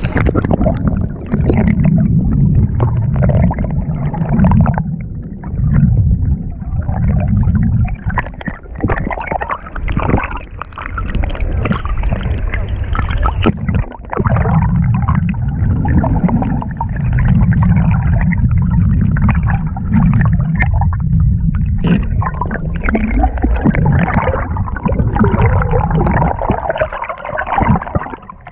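Muffled underwater water noise around a submerged camera: a heavy low rumble with gurgling and sloshing that swells and dips unevenly.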